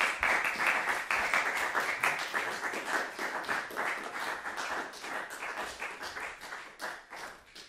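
Audience applauding, many hands clapping, gradually dying away toward the end.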